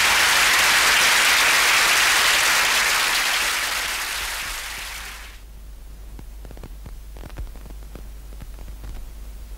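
Studio audience applauding, fading out over about five seconds. A faint low hum with scattered soft clicks remains.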